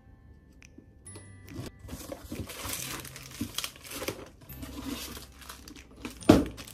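Paper and plastic packaging rustling and crinkling as items are lifted out of a cardboard box, with one loud thump near the end.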